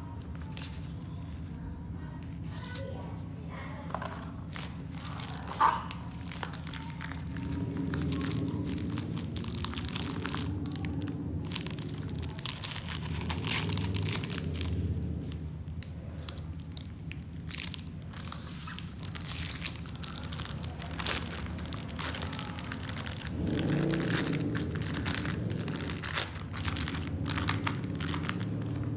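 Plastic packaging crinkling and rustling in irregular bursts as it is handled and opened, with one sharp click about six seconds in.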